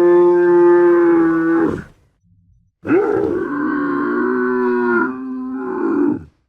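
Camel calling twice, each a long, drawn-out pitched call. The first is already under way at the start and ends about two seconds in. The second begins about three seconds in, shifts in pitch around five seconds, and stops just before the end.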